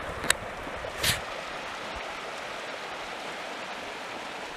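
Steady rushing water noise on the lake, with a faint click just after the start and a short splash about a second in.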